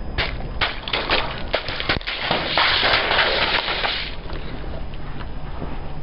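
A car tyre rolling over a row of liquid-filled plastic tubes: a quick run of sharp pops and cracks as the tubes burst, then a dense crackling hiss of liquid spraying out, dying away about four seconds in.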